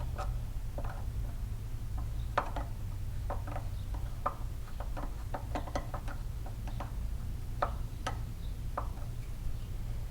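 Scattered light metallic clicks and taps of hand tools and parts being handled while an EZLOC thread insert is turned into a freshly tapped bolt hole in a small engine's side cover, over a steady low hum.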